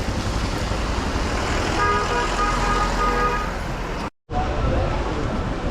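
Road traffic noise with a vehicle horn honking for about a second and a half, starting about two seconds in. The sound cuts out completely for a moment near the end.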